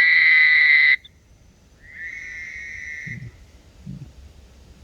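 Two frogs trading loud, whistle-like mating calls: a loud one-second call at the start, answered about a second later by a quieter, slightly longer call from the other frog. Two soft low thumps follow near the end.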